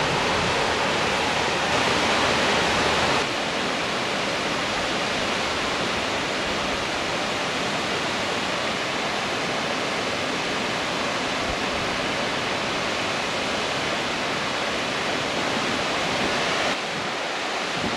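Water rushing down a small river's rocky cascades and falls, a steady even rush. It drops a step in level about three seconds in and again near the end.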